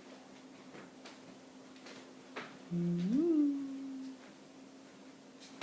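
A short hummed 'mm' from a voice about three seconds in, sliding up in pitch and then holding, over a faint steady hum and a few light clicks.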